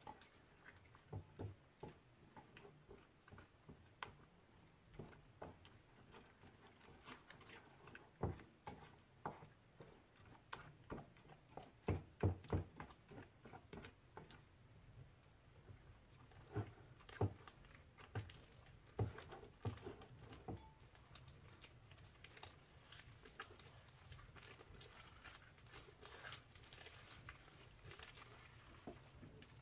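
Slime mixture being stirred with a silicone spatula in a glass bowl, then squeezed and kneaded by hand as it thickens into slime: faint, irregular squelches and clicks, loudest around the middle.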